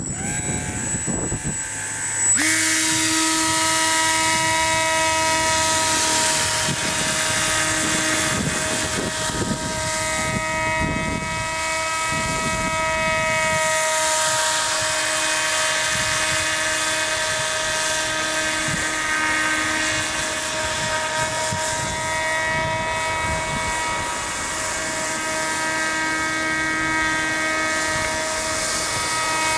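Radio-controlled model airboat's motor and air propeller running: a steady, pitched buzz. It comes up sharply about two seconds in and then holds nearly the same pitch.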